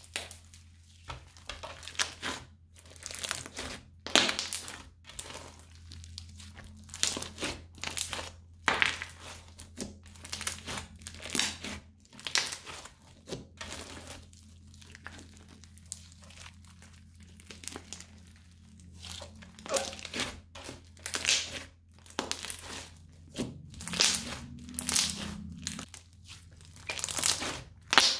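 Hands squeezing, stretching and folding crunchy slime, giving irregular crackling, crunching pops in clusters, one or two loud clusters a second.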